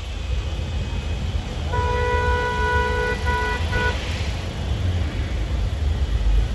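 A vehicle horn honking in a traffic jam: one long honk, then two short ones. A steady low rumble of the vehicle cabin runs underneath.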